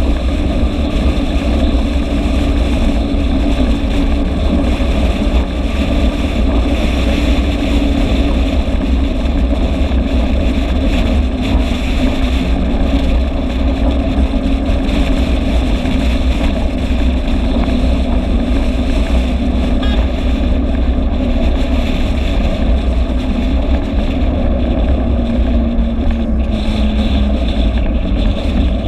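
Vespa scooter engine running at a steady cruise, heard from a camera mounted on the moving scooter, with heavy wind noise on the microphone. The engine note drops a little near the end.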